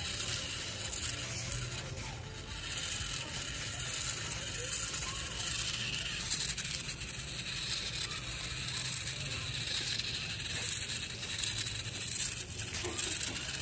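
Small solar-powered DC motor and plastic gear train of a toy wheel robot whirring steadily as the robot rolls over dirt.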